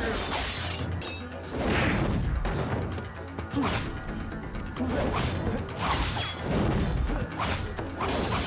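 Film sword-fight soundtrack: repeated metallic blade clashes that ring briefly after each hit, with swishes of swung blades, over a music score.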